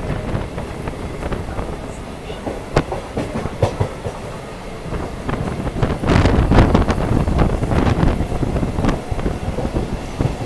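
Mumbai suburban local train running at speed, heard from on board: a steady rumble with the wheels clacking over rail joints, growing louder about six seconds in.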